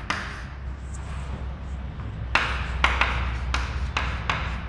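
Chalk writing on a chalkboard: short scratchy taps and strokes, about three a second, starting a little past halfway through. A low steady hum runs underneath.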